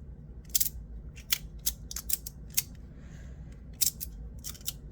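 PdEdc magnetic fidget slider being worked by hand, its metal pieces clicking as the magnets snap them into place: a dozen or so sharp, irregular clicks.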